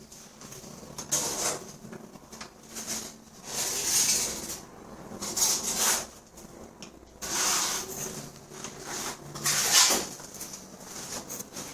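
Rough rubbing strokes on a hard surface, about ten in irregular succession, each lasting under a second, with the longest and loudest near the middle and just before the end.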